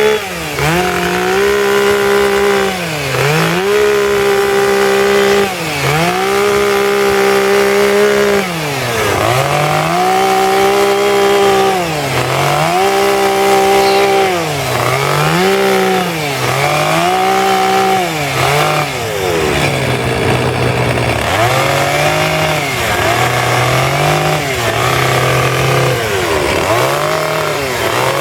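Two-stroke chainsaw running at high revs while carving wood, its pitch dipping and climbing back about a dozen times as the throttle is eased off and squeezed again between cuts. Around the middle it holds at a lower pitch for a couple of seconds before revving up again.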